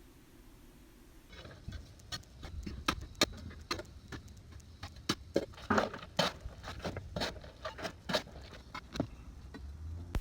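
Hand digging dirt and rubble out from behind a gunite pool wall: irregular knocks and scrapes of a hand tool in soil, starting about a second and a half in, over a low rumble.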